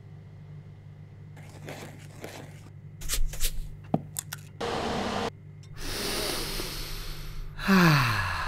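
Cartoon kitchen sound effects for making a soufflé: a series of short noisy scrapes and rustles over a steady low hum, with a click about four seconds in. Near the end comes a louder rush carrying a tone that falls in pitch.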